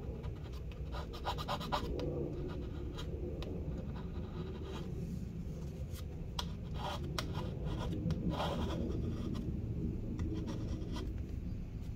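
Plastic scraping tool scratching adhesive residue off the metal battery bay of a MacBook Pro, in short quick strokes, with a dense run of them about a second in and scattered scrapes and clicks after.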